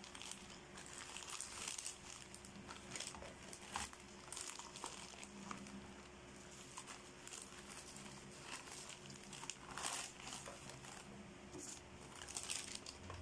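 Bubble wrap and a plastic courier pouch crinkling and rustling as they are handled and unwrapped, in irregular bursts of crackle.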